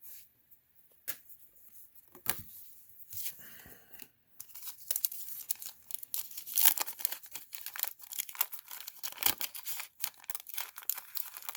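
Wax paper wrapper of an old trading-card pack crinkling and tearing: scattered rustles at first, then a dense run of crackling from about four seconds in.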